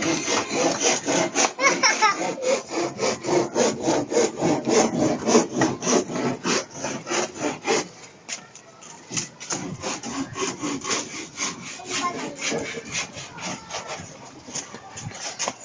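Fast, repeated rasping strokes of something rubbing or scraping on wood, several a second, louder for the first half and quieter after about eight seconds.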